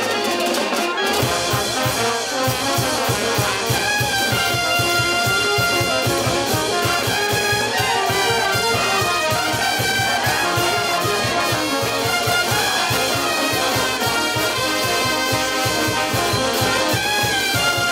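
Brass band music, trumpets playing held melodic notes over a steady, evenly repeating low beat that joins about a second in.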